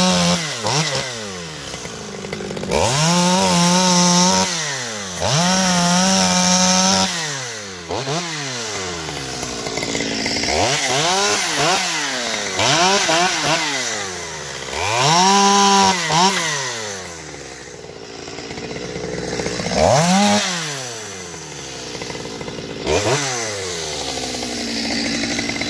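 Stihl MS 200 T top-handle two-stroke chainsaw revving to full throttle again and again to cut through small logs and branches. Each burst is held for a second or so, then drops back to a lower idle between cuts, about seven times.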